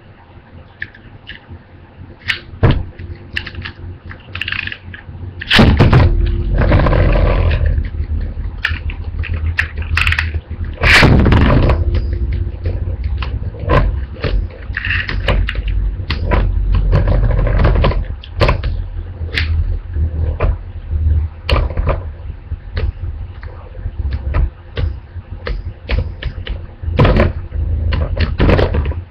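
Two Beyblade spinning tops battling in a stadium bowl, one of them a homemade top made of two Beyblades taped together. They clash with many sharp clicks, over louder stretches of continuous scraping noise and rumble that begin about five and a half seconds in.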